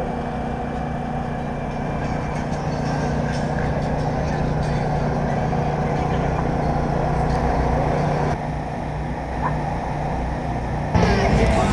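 An engine running steadily at one unchanging pitch, a low drone. It drops back a little about eight seconds in, and a louder sound cuts in just before the end.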